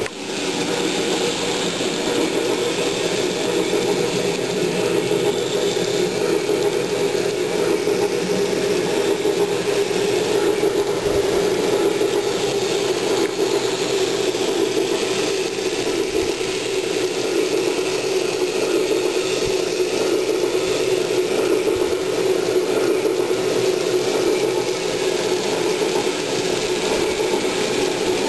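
N scale model train running on the layout's track: a steady mechanical whirring rattle of the locomotive's small motor gearing and wheels.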